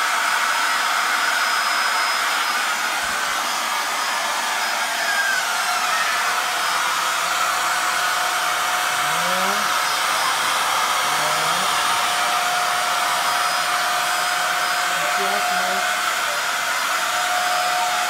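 Two Kitfort upright stick vacuum cleaners (KT-535 and KT-509) running steadily with their carpet brush heads on a rug: an even rush of motor and airflow with a thin high whine over it.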